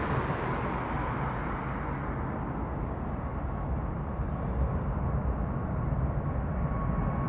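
Airbus A380's four jet engines at takeoff power, heard as a steady deep rumble with a hiss. The hiss fades over the first couple of seconds.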